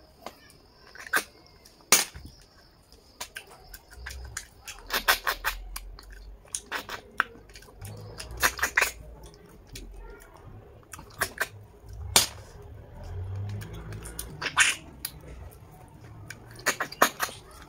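Short, sharp sucking and slurping sounds, coming in quick clusters every few seconds, as small cooked snails are sucked out of their shells by mouth, with chewing in between.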